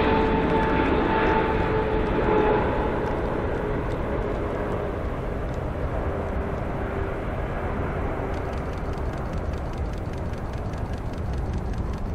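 Boeing 777-300ER's twin GE90 turbofan engines on final approach: a steady jet rumble with a two-note whine that fades about three seconds in, the rumble then slowly easing off as the airliner moves away toward the runway.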